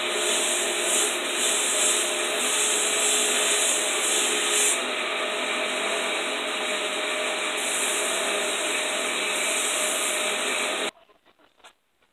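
Belt grinder running as a knife's wooden handle is sanded smooth on the belt: a steady grinding rush over the motor's hum, which stops abruptly about eleven seconds in.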